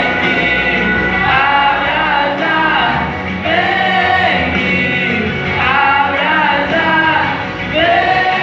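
A small church vocal group of women's voices and a young man's voice singing a Portuguese gospel song together, with long held sung notes.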